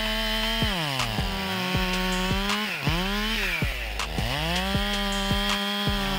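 Stihl two-stroke chainsaw cutting through a log at high revs. Its engine note drops in pitch several times as the chain bites into the wood and climbs back as it frees.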